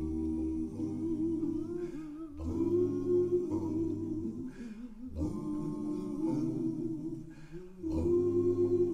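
Male a cappella vocal group singing long held, harmonised chords, in phrases that break every two to three seconds. It is played back through tower loudspeakers and picked up by a microphone in the listening room.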